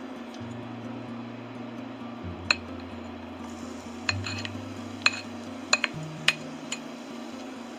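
A plate and spatula clinking against a metal frying pan as chopped garlic is scraped in. There is one sharp clink about a third of the way in, then a quick run of several more over the next few seconds, over a low steady hum.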